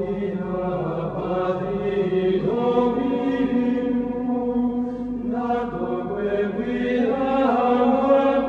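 Chanted vocal music: a slow sung line in unison, holding long notes and stepping to a new pitch every second or two.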